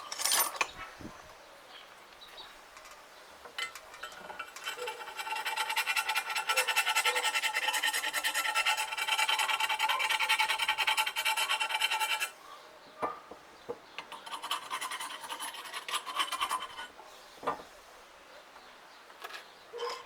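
Scraping and scrubbing on a metal bicycle frame as softened paint is stripped off: a continuous rasping run of about eight seconds that stops abruptly, then a few shorter strokes and clicks.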